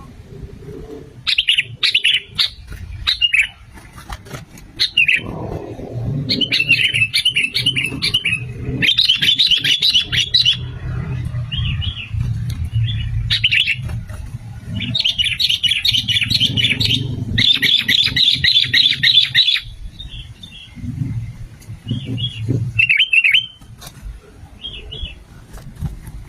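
Sooty-headed bulbul singing vigorously: repeated bursts of rapid, bubbly chattering phrases, with several long runs in the middle and shorter calls near the end, over a low background rumble.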